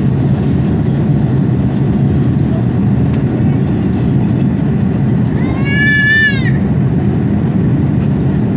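Steady engine and airflow noise in the cabin of an Airbus A330-300 in flight, heard from a window seat beside the wing engine. About five and a half seconds in, a single high cry rises and falls for about a second over it.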